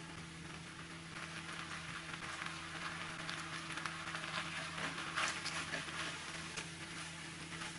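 A wooden spatula stirring and scraping macaroni, diced chicken and sausage in a nonstick pan, making soft scattered scrapes and clicks over a steady low hum.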